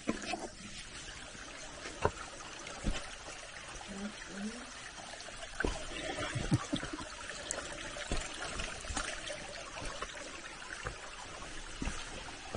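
A small stream trickling over rocks, with the scattered steps of a hiker on sand and stones.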